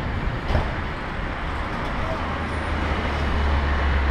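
Steady road traffic noise of cars and motor scooters heard from a moving bicycle, with a deep low rumble swelling louder near the end and a brief click about half a second in.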